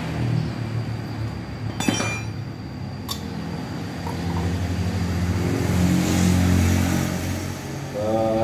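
Racing motorcycle engine running at a low idle while its carburettor is being adjusted, the revs lifting a little about six seconds in. A sharp metallic clink about two seconds in and a lighter click about a second later.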